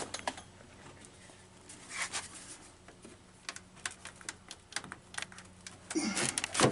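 Light clicks, taps and scrapes of plastic and metal as a binding headlight door is worked loose from a Mercedes-Benz W123, with a short scrape about two seconds in and a louder scrape near the end.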